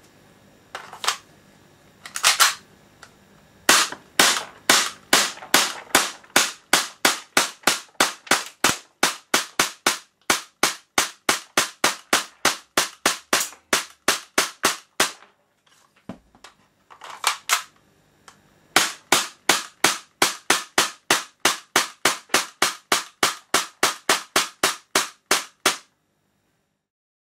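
Tokyo Marui Sentinel Nine gas blowback airsoft pistol (a SIG P226 replica) firing shot after shot, each a sharp crack with the slide cycling, about three a second in two long strings with a short pause between. The last shot comes near the end, when the magazine is empty and the slide locks back.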